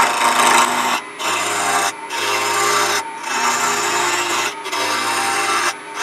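Small 3/8-inch bowl gouge cutting into a wooden blank spinning on a wood lathe, rounding it off. The cutting comes in about five passes of a second or so each, with short breaks between, over the lathe's steady hum.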